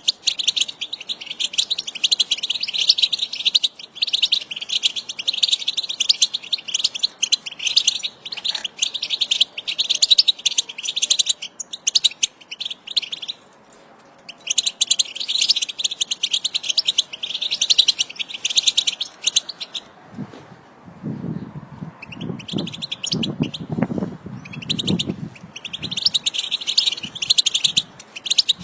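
A flock of European goldfinches twittering: a dense run of rapid, high chattering calls that pauses briefly twice. A low rumble comes in under the calls for several seconds in the second half.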